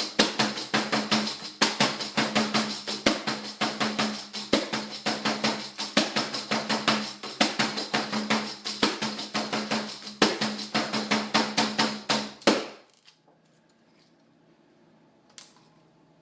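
A pandeiro made from recycled materials is played in a quick, even rhythm, its jingles ringing with each stroke. The playing stops suddenly about three-quarters of the way through, leaving near silence with one faint click near the end.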